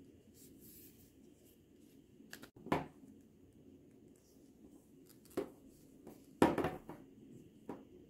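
Handling noise from a calf-leather belt with a metal buckle: several short clicks and knocks as it is turned in the hands, the loudest about three seconds in and again about six and a half seconds in, over faint room tone.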